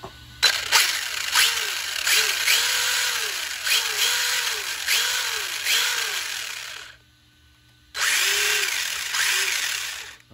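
Kyosho Fazer MK2 RC car's electric motor and drivetrain, with its new one-piece steel driveshaft, running up in a series of quick throttle blips, each a whine that rises and falls in pitch. It stops about seven seconds in and starts again a second later. The driveshaft is running straight, with no vibration.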